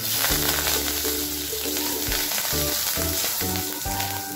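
Curry leaves hitting hot oil in a pan of tempering spices: a sizzle that breaks out suddenly at the start and keeps going as they are stirred with a wooden spoon. Background music runs underneath.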